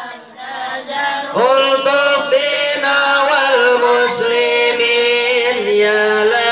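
A group of boys' and men's voices chanting an Islamic devotional song (sholawat) together in long held notes. The chant dips briefly at the start, and the voices come back in about a second and a half in.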